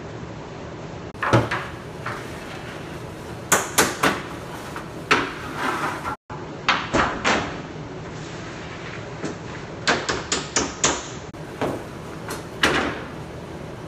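Irregular knocks and clatter of things being handled: about fifteen sharp impacts at uneven spacing, some in quick runs of three or four, over a low steady background.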